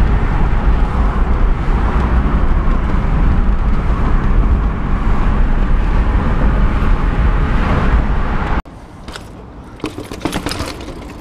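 Steady road and engine rumble heard inside a Nissan car's cabin while driving in city traffic. It cuts off suddenly near the end, leaving quieter clicks and rattles of a mountain bike rolling over stone paving.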